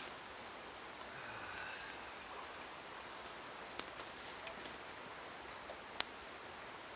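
A small bird calling twice, a short high-pitched descending phrase each time, over steady outdoor background noise. A few sharp clicks, the loudest about six seconds in.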